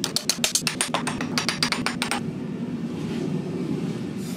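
Fast run of sharp metal-on-steel strokes, about six a second, on a steel billet clamped in a vise, stopping about two seconds in; a steady low hum runs underneath.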